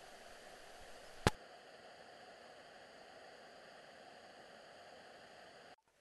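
Steady rushing of a creek pouring over a low rocky ledge, an even hiss of water. A single sharp click about a second in, and the sound cuts off abruptly just before the end.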